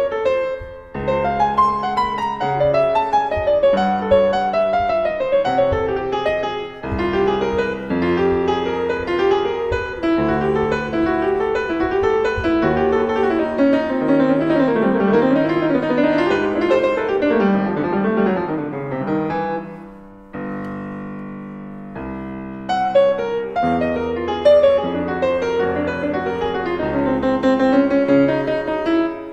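Yamaha CFX concert grand piano played solo, recorded through an Earthworks QTC30 microphone. About two-thirds of the way through, the playing stops on a held chord that slowly dies away, then resumes.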